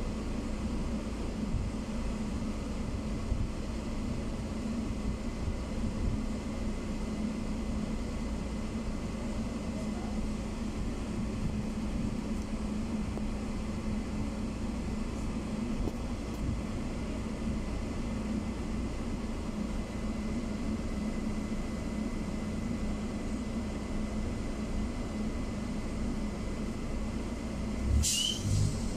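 Interior noise of a BKM 321 trolleybus: a steady low rumble with a constant hum and a thin, steady high whistle from the electrical equipment. Near the end a sudden louder noise breaks in.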